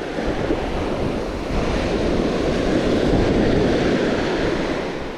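Surf breaking and washing up the sand at the water's edge, swelling about midway and then easing off, with wind buffeting the microphone.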